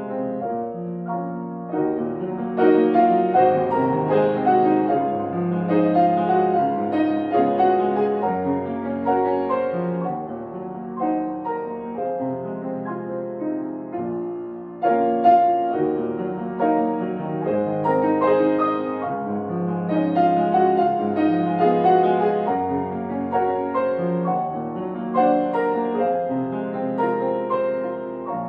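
Grand piano playing a slow hymn arrangement: melody in chords over held bass notes, in two similar long phrases, the second opening with a sudden louder chord about halfway through.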